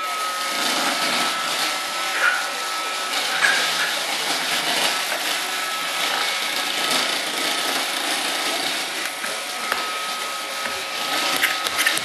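Roomba robot vacuum running: a steady whir of its motor and brushes with a steady high whine, a few light knocks near the end.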